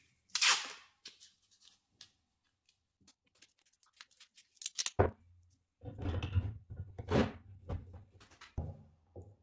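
Close handling noises of small workshop items: scattered clicks and a swish near the start, a sharp knock about five seconds in, then a few seconds of scraping and clatter.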